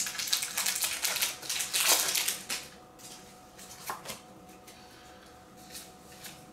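Foil wrapper of a Pokémon Rebel Clash booster pack crinkling as it is torn open, stopping about two and a half seconds in. Then a few faint ticks of the trading cards being handled.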